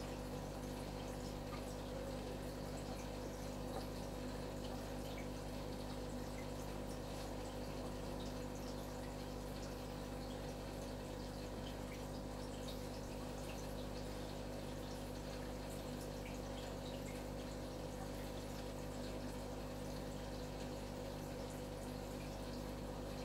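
Aquarium filter running: a steady hum with water trickling and faint drips.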